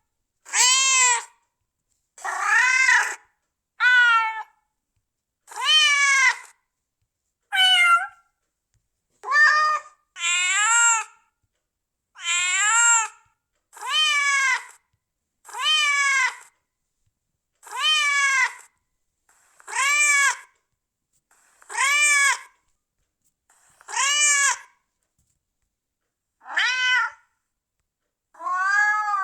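A domestic cat meowing over and over, about one meow every two seconds. Each meow lasts about a second and rises then falls in pitch, with silence between the calls.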